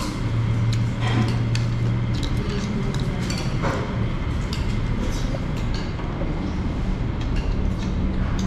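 Restaurant table sounds: scattered light clinks of spoons and forks against bowls and plates over a steady low rumble that is strongest for the first couple of seconds.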